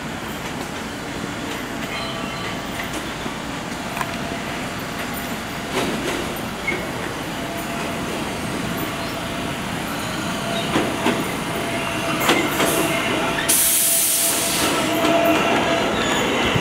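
Budd R32 subway cars rolling past on yard track: a steady rumble of wheels on rail with scattered clicks over the joints and a faint wheel squeal. A short burst of hiss comes about thirteen seconds in.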